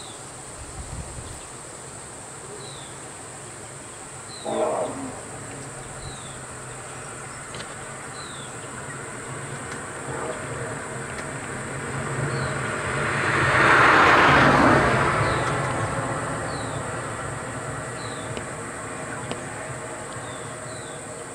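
Roadside ambience: a steady high-pitched insect drone with a short chirp repeating every second or so over a low engine hum. Around twelve seconds in, a loud rushing noise swells, peaks and dies away over about four seconds.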